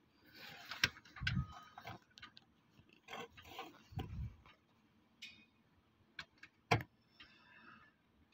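Faint scattered clicks and soft knocks with light rustling: hand-handling noise around a stopped engine's timing belt cover area. The sharpest clicks come a little under a second in and again just before seven seconds.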